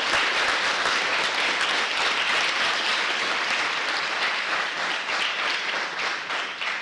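Audience applauding: dense, steady clapping from many people that eases slightly near the end.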